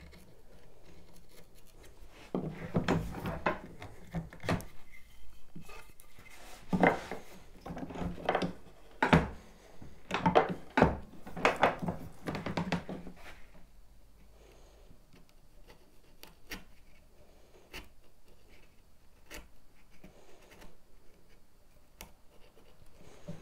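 Wooden mallet driving a bevel-edge chisel down into the wood in a series of knocks, chopping along the marked line of a tenon cheek. Near the middle the knocks stop, and a few lighter, sparser taps follow.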